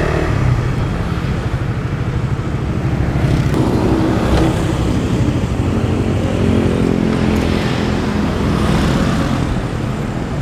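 Suzuki GSX motorcycle engine running at low road speed as the bike slows along the curb and pulls up, with steady engine tone and road noise.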